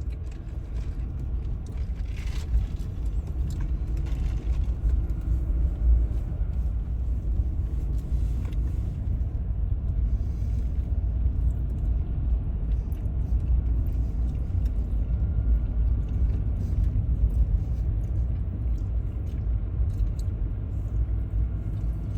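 Steady low rumble of a car driving, heard from inside the cabin: road and engine noise with no sharp events.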